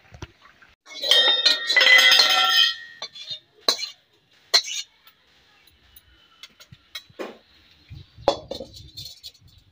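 Metal kitchen utensils and pots clinking and clattering for about two seconds, starting about a second in, with ringing metallic tones. A few scattered knocks and taps follow.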